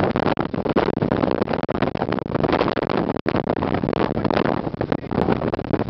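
Wind of about 70 miles an hour buffeting the microphone in a loud, constant, fluttering rush. The sound cuts out for an instant about three seconds in.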